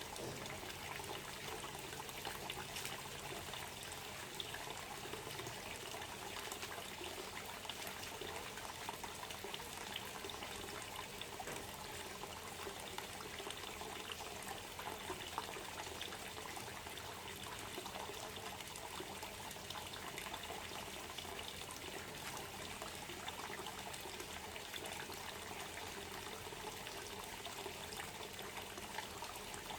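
Steady trickling and pouring water, running continuously without change.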